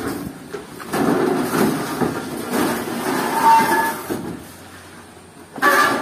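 Steel frame of a peanut sorting machine scraping and rumbling across a pickup truck bed as it is pushed in, for about three seconds. A short, louder pitched sound comes near the end.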